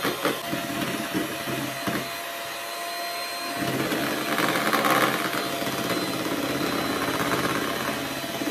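Electric mixer running, its beaters whipping eggs in a bowl to a foam. The motor runs steadily, with a few knocks early on and a change in its sound about three and a half seconds in.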